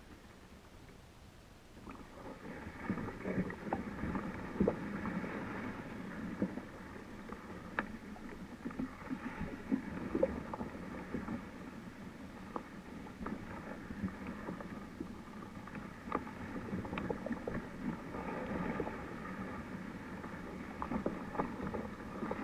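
Kayak moving through water: water swishing and lapping along the hull, with scattered small clicks and knocks, starting about two seconds in.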